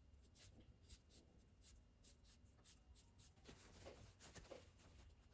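Near silence, with faint rustling and small clicks of fabric and bias tape being handled and folded.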